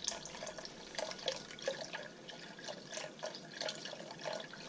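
Chicken broth being poured into a pot of soup base, with irregular glugs and splashes of liquid several times a second.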